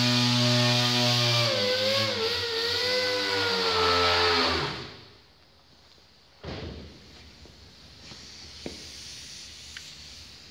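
Air-powered orbital sander running with a steady hum and a high air hiss, its pitch wavering as it is worked against a car body panel from about a second and a half in, then winding down and stopping a little before halfway. A single knock about six seconds in, then a couple of faint clicks.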